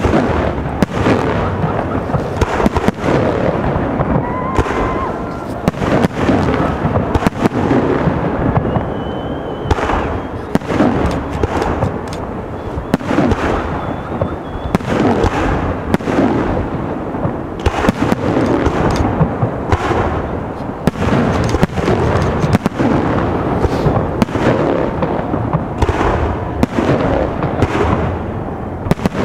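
Fireworks display: aerial shells bursting one after another in a dense, irregular string of bangs with no real pause.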